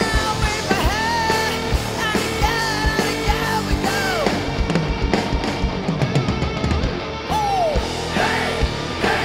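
Live pop-rock band playing a song, with a woman singing long, sliding vocal lines over a drum kit and guitar. The singing fills the first half, with one falling slide in the voice near the end.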